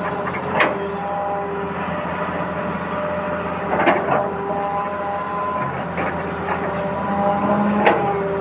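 Small electric motor of a battery-powered toy vehicle whirring steadily, with its pitch shifting now and then, and three sharp knocks.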